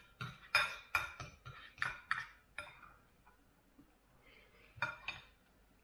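Fork and knife clinking and scraping against a plate of fried noodles: a quick run of sharp clinks in the first three seconds, then two more about five seconds in.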